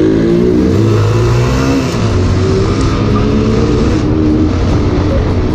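Motorcycle engine revving hard under acceleration, its pitch rising and shifting, with wind and road noise.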